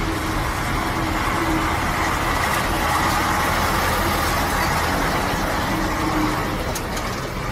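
Loud, steady engine noise from a heavy military vehicle or aircraft, cut off suddenly at the end.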